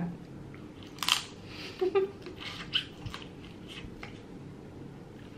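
Close-miked mouth sounds of eating Dungeness crab meat: a string of short wet smacks and clicks, one or two a second, over a low steady background hum.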